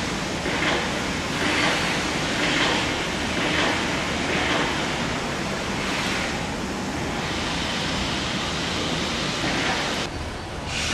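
Steady rushing noise of a freight train passing slowly behind an EF65 electric locomotive, swelling about once a second for the first few seconds. Near the end the sound changes abruptly.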